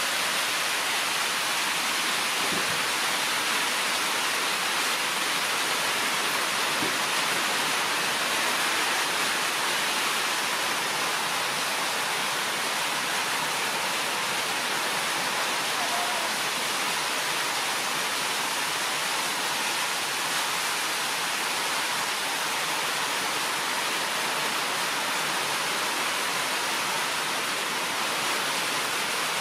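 A loud, steady, even hiss of rushing noise that covers everything else.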